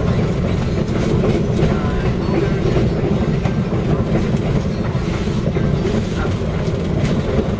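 PeruRail passenger train running along the track, heard from on board: a steady rumble of the wheels on the rails with a few faint clicks.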